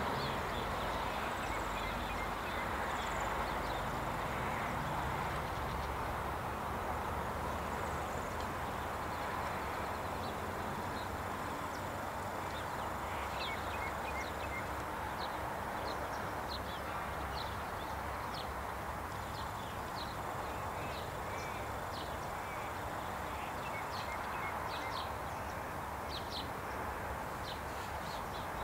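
V/Line VLocity diesel multiple unit rumbling low as it moves away, the rumble fading over the first few seconds under a steady outdoor hiss. Short bird chirps come in at about nine seconds and grow more frequent.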